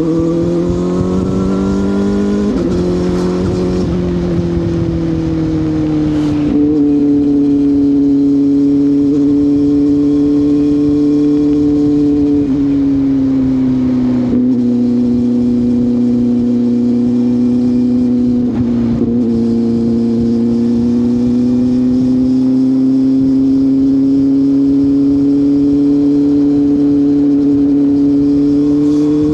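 CFMoto 500SR Voom's parallel-twin engine running through an SC Project carbon slip-on exhaust, with the stock catalyst kept. The engine note climbs over the first few seconds, then holds fairly steady, with short breaks in the note four times.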